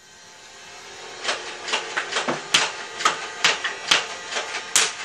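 Motorised full-auto Nerf blaster spinning up its flywheels, then firing a rapid string of foam darts: sharp clacks about three a second from about a second in.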